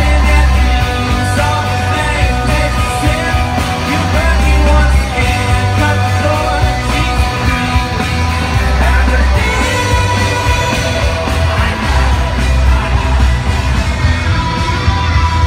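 Live rock band playing loudly, with a male lead singer and electric guitar over a heavy, booming low end, heard from within the crowd.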